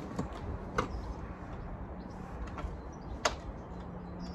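A few light clicks and taps as a screwdriver turns the plastic quarter-turn fasteners of a car's boot floor panel, the sharpest click about three seconds in, over steady outdoor background noise.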